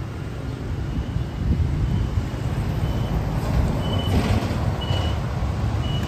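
Street traffic with the low rumble of a heavy vehicle's engine, and a short high beep repeating about once a second.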